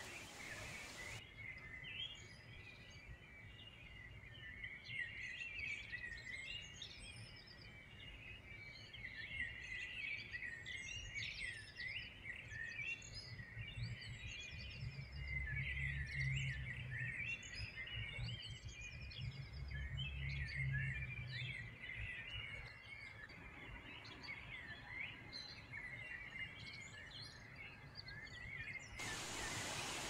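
A dense chorus of small songbirds chirping and trilling over one another. Steady rushing water is heard only briefly at the start and again just before the end, and a low rumble swells twice near the middle.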